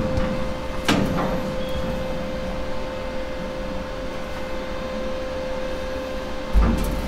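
Steady machine hum with one held tone, broken by a single knock about a second in and a low thump near the end.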